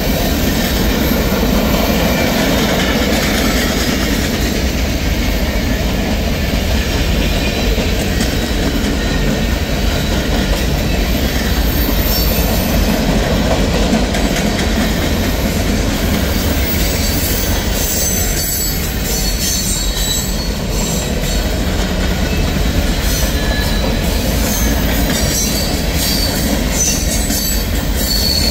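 Mixed freight train cars rolling past: a steady, loud rumble of steel wheels on rail, with high-pitched wheel squeal coming through in the second half.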